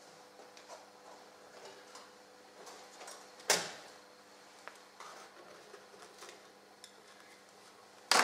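Handling clatter as a wooden board holding three light bulbs is brought in and set down on its stand: a sharp knock about three and a half seconds in and a louder one near the end, with small clicks and rustles of the wires between. A faint steady hum sits underneath.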